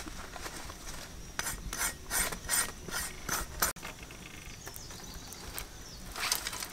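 Hands working leafy greens, a run of about seven rasping, rustling strokes, roughly three a second, that stops abruptly about halfway. A quieter stretch follows, with a brief rustle of dry sticks near the end.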